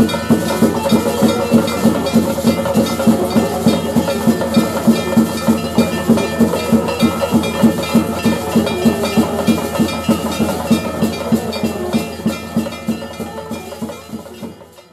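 Theyyam ritual percussion: chenda drums and hand cymbals beating a fast, even rhythm of about three beats a second, with the cymbals ringing over it. It fades out near the end.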